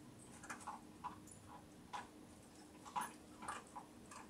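Small dog eating hand-fed kibble and moving about close by: a faint scatter of short, soft clicks and taps, the loudest about three seconds in.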